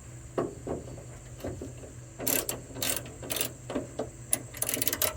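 Ratchet wrench clicking in short bursts as a 10 mm M6 bolt is tightened down; the clicking starts about two seconds in.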